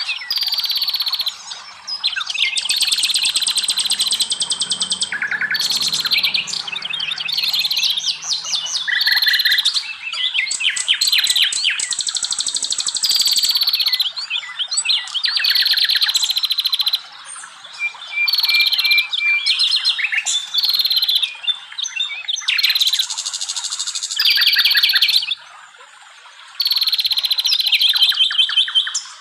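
Forest songbirds singing almost nonstop: fast trills and chirping phrases, each a second or two long, with short pauses between them.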